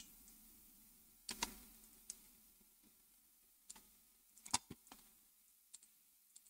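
A handful of faint, scattered clicks of a computer mouse and keyboard being worked. The loudest is a quick pair about four and a half seconds in.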